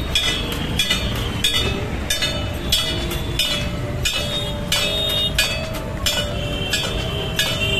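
Shrine bells struck over and over, about one and a half strokes a second, each stroke ringing briefly, over a steady street crowd din.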